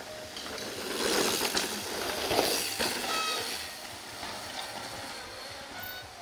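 Downhill mountain bikes passing close on a dirt trail: knobby tyres rolling and the bikes rattling, loudest between about one and three seconds in, with a few brief squeaks around three seconds in.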